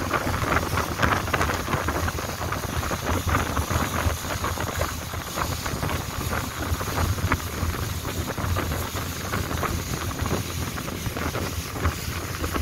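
Long-tail boat's engine running steadily under way, mixed with wind buffeting the microphone.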